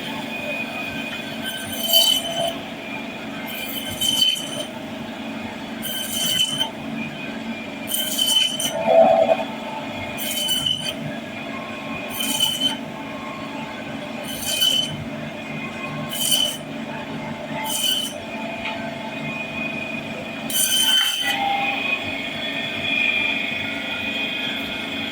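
Fish-cutting blade scraping through a large hilsa in short, harsh strokes, about one every two seconds, with a squealing metallic edge to each stroke. A steady background hum runs underneath.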